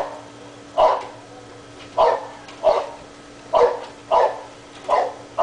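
A dog barking over and over in single, sharp barks, about seven of them spaced a half second to a second apart, with a faint steady hum underneath.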